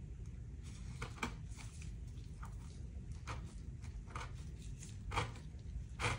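Hands in nitrile gloves pulling stitching thread out of the fabric cover of an armor plate: a series of short, faint scratches and rustles, the loudest near the end.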